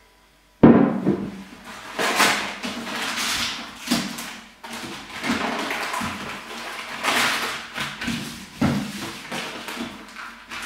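Gift wrapping paper rustling and crinkling as it is folded and rolled by hand, in uneven surges, beginning with a sharp knock about half a second in.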